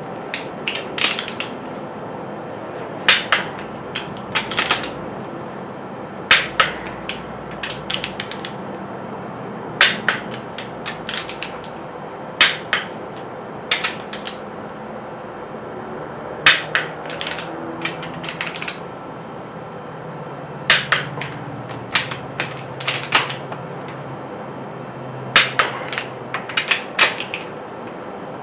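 Click-type torque wrench tightening small-block Chevy 350 cylinder-head bolts to 70 foot-pounds. Short runs of sharp ratchet clicks come every few seconds, one run per bolt, ending as the wrench clicks off at the set torque.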